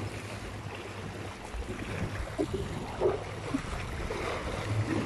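Outdoor seashore ambience: a steady rush of wind and water noise with a low hum underneath, and a few faint murmured voices between two and three and a half seconds in.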